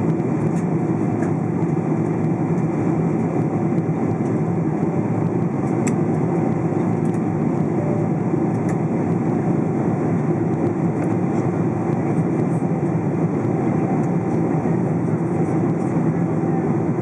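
Steady engine and airflow noise inside the passenger cabin of a Boeing 777-200 in flight. It is a constant, even rumble with a faint steady hum above it.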